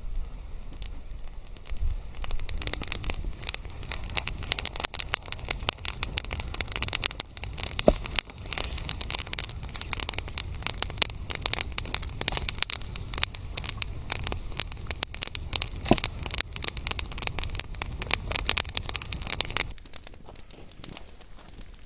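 Wood campfire crackling and popping in a dense irregular run, with two sharper pops about eight and sixteen seconds in. The crackling drops away to a quieter level near the end.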